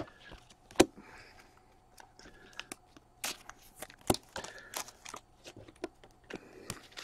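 Hockey cards and their plastic sleeves and packaging being handled and set down on a table: light rustling and crinkling with scattered sharp taps, the loudest about a second in and again about four seconds in.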